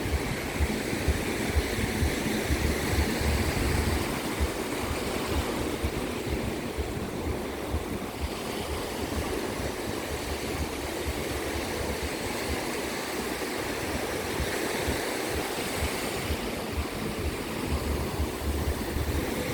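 Sea waves washing onto a sandy beach in a steady wash of surf that swells and eases, with gusts of wind rumbling on the microphone.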